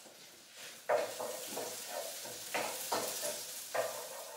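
Garlic and spring onions sizzling in rapeseed oil in a frying pan, starting about a second in, with repeated scraping strokes as they are stirred around the pan.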